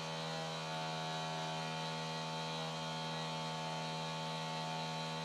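A steady, unchanging electrical hum with many evenly spaced overtones.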